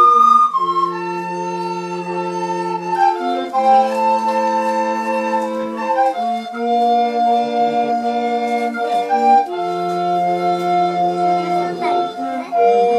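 A recorder ensemble playing slow music in several parts, with chords held for a second or more and changing together, over a low bass line.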